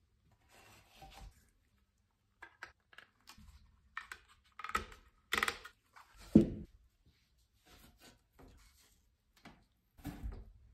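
Painted metal lamp parts handled and fitted together by gloved hands on a towel: scattered clicks, scrapes and a few sharper clinks, with a heavier thud about six seconds in and another near the end.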